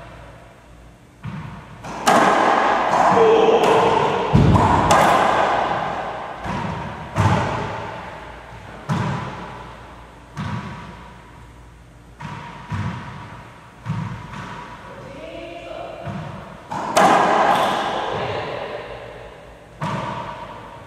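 Racquetball rally: repeated sharp smacks of the ball off the racquets and the court walls, a second to a few seconds apart, each ringing out with a long echo in the enclosed court.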